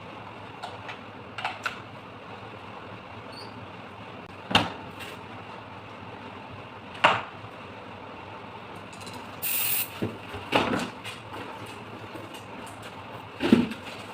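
Knocks and clicks of a cordless drill and tools being handled and taken apart, about five sharper knocks a few seconds apart, with a short hiss a little past the middle, over a steady background hum.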